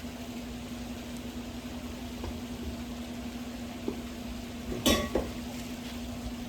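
Metal tetherball poles being handled: one loud metallic clank with a brief ring about five seconds in, a smaller knock just after, and a few lighter taps before, over a steady low hum.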